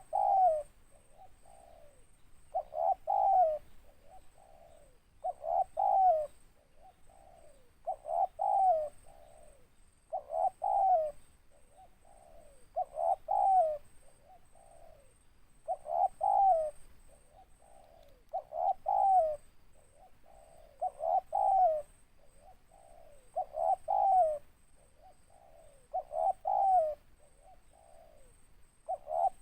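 Spotted dove cooing in a deep, big voice: a phrase of a few quick notes building to one louder note, then softer trailing notes, repeated steadily about every two and a half seconds.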